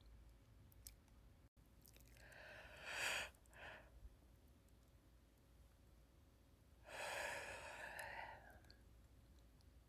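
A person yawning close to the microphone: a short breathy intake about three seconds in, followed by a long breathy exhale from about seven seconds in.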